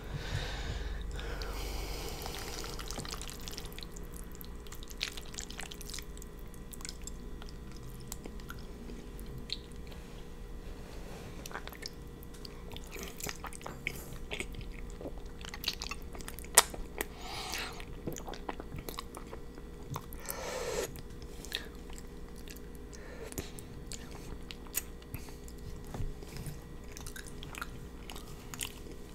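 Close-miked chewing of creamy fettuccine noodles, with many wet mouth clicks and smacks and a few brief slurps. One sharp tap about halfway through stands out as the loudest sound.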